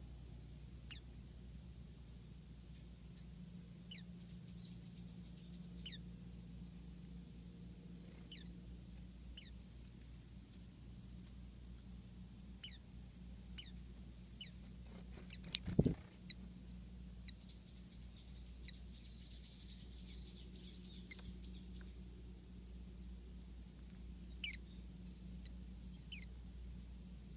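Small songbirds calling: scattered short, thin, high chirps, with two quick runs of repeated chirps, over a faint steady low hum. A single sharp knock about halfway through is the loudest sound.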